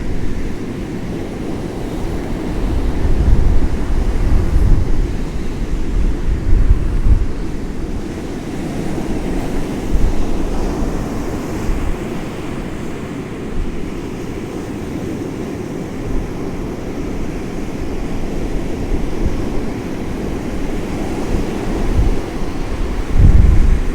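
Storm surf from a rough North Sea breaking and rolling in, under gale-force wind. The wind buffets the microphone in heavy gusts a few seconds in and again near the end.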